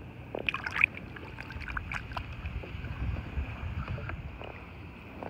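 A just-caught Atlantic croaker handled at the kayak's side: a few sharp wet slaps and clicks about half a second to a second in, then a low pulsing grunt, the drumming croak this fish makes when held.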